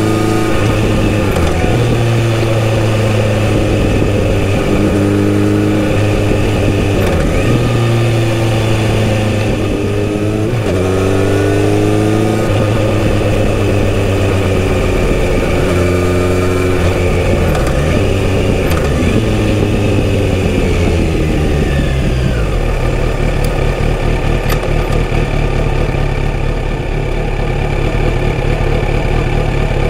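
Kawasaki Z900RS's inline-four engine pulling through the gears on the move, its note climbing and dropping back at each shift several times. About two-thirds of the way in it settles to a steady low idle.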